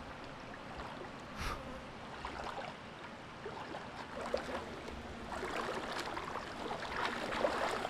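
Water splashing and sloshing around the legs of someone wading through shallow water: irregular small splashes, getting busier and louder in the second half.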